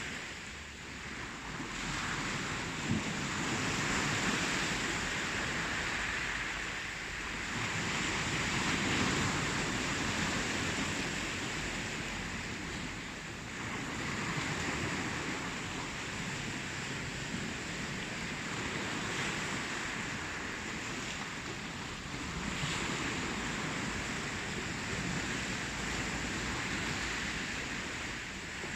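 Ocean waves breaking and washing on a shore, a continuous surf that swells and ebbs every few seconds, with some wind.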